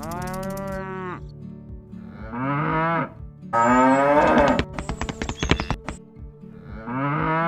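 Cattle mooing four times: a long moo at the start, two more in the middle, the third the loudest, and another near the end.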